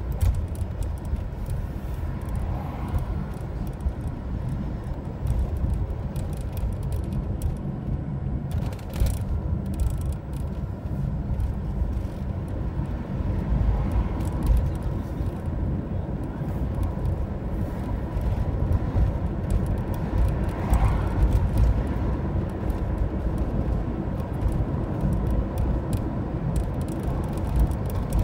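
Road noise inside a moving car's cabin: a steady low rumble of engine and tyres.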